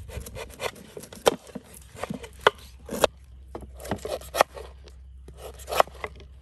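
Kitchen knife cutting and paring the knobbly rind off a young green jackfruit on a wooden chopping board: short scraping cuts with irregular sharp knocks of the blade on the board, about a dozen, the loudest a little over a second in and near the middle.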